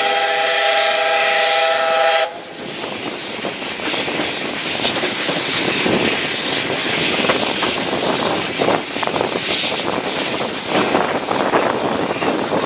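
Steam locomotive's whistle, several steady tones at once, cutting off sharply about two seconds in. Then the rushing running noise of the moving train, with scattered clatter from the wheels on the rails.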